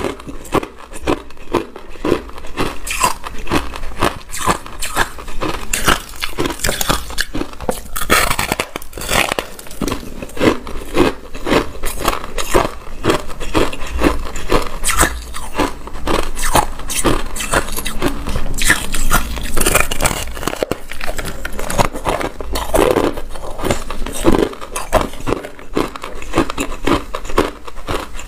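A person biting into and chewing a chunk of granular, snow-like freezer frost ice close to the microphone: a continuous run of sharp, crackly crunches, several a second.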